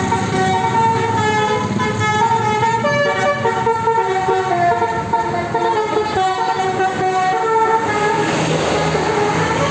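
Bus Basuri telolet horn, a multi-tone air horn, playing a stepped tune of changing notes. Near the end the tune stops and a rushing noise takes over.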